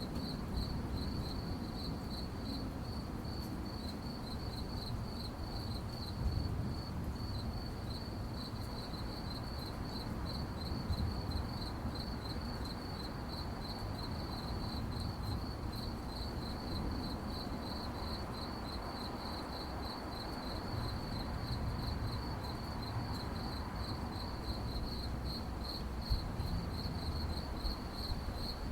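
Crickets chirping at night: a steady, high, rapidly pulsed trill repeating several times a second, over a low background rumble.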